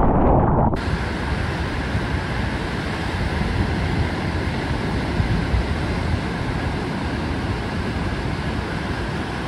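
A brief loud rush of churning whitewater on a GoPro in the surf, then an abrupt cut, less than a second in, to a steady rush of waves breaking and wind on the microphone, recorded from the shore.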